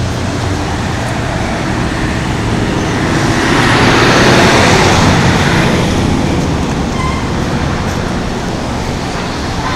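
Street traffic noise, with a vehicle passing close by that swells and fades between about three and six seconds in.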